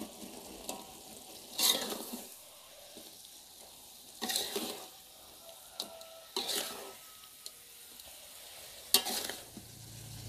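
Stirring in a frying pan of sizzling tomato and chili sauce as fried jengkol and salted fish are mixed in: four louder scraping strokes about two seconds apart over a low, steady sizzle.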